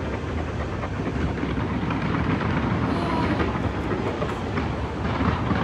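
A dense fireworks barrage: rapid crackling bangs that run together into a continuous rumble.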